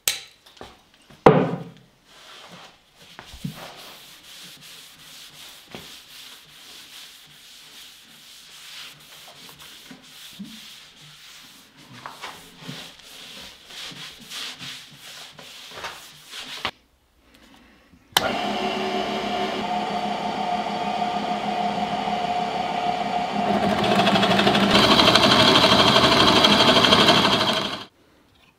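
Hand strokes rubbing back and forth over wood, irregular and fairly quiet. After a short pause, a small electric power tool starts up and runs steadily at a much higher level, gets louder partway through, and then stops shortly before the end.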